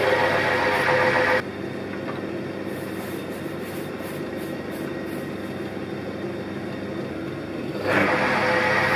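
Myford Super 7B lathe running with a steady whine while an inserted-tip parting tool cuts dry into aluminium bar. The sound stops suddenly about a second and a half in, leaving a quieter stretch, and the lathe runs again near the end.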